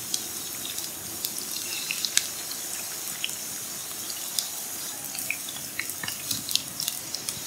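Batter balls deep-frying in hot oil in a wide black pan, sizzling steadily with many small scattered pops and crackles.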